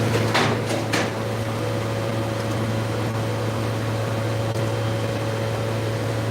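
Elevator running at speed: a steady low electric hum with a fainter higher steady tone. Two short hissing sounds come about half a second and a second in.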